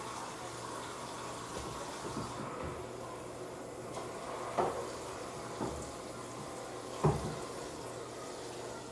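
Steady rushing noise with a faint low hum, broken by a few soft knocks, the loudest about seven seconds in.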